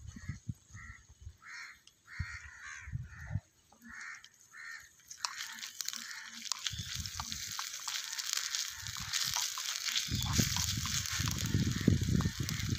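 A bird calling repeatedly in short calls. About five seconds in, a steady sizzle starts as onions and spice paste fry in oil in a miniature clay pot over a wood fire, with small spoon clicks and some low thumps.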